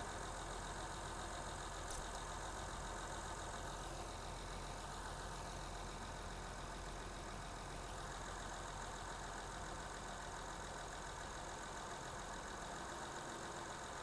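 A 2006 Honda Odyssey's 3.5-litre V6 idling faintly and steadily on its cold-start idle as it warms up.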